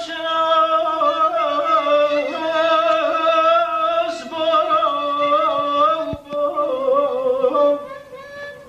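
A male voice sings a long, ornamented line of Persian classical song (avaz), its pitch wavering and held, with a violin playing along.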